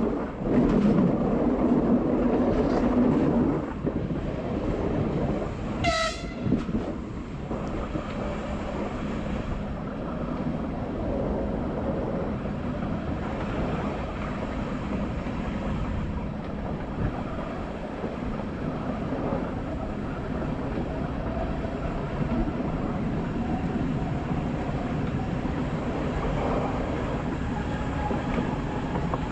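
Class 471 electric multiple unit running along the line: steady rolling and traction noise, louder for the first few seconds, with one short horn blast about six seconds in.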